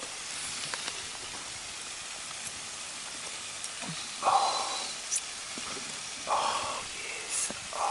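Steady hiss of light rain falling, with two short scrapes about four and six seconds in.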